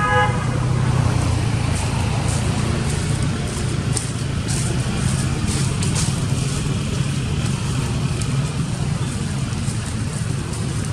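Steady low background rumble, with faint scattered ticks.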